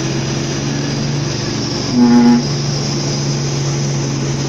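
Hino Ranger truck's diesel engine running steadily, heard from inside the cab, with the truck laden with about 26 tonnes of steel. About two seconds in comes a short horn toot lasting under half a second.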